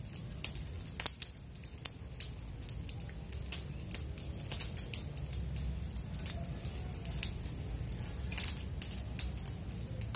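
Irregular small clicks and crackles of hands working an avocado graft, handling the knife and the plastic grafting strip, over a low steady rumble.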